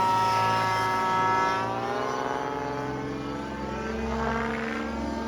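Miniature Aircraft Spectra gas RC helicopter's 27cc engine with a small Zimmerman tuned pipe running in flight. Its pitch slides down and back up as the helicopter moves about, a little fainter in the middle and louder again near the end.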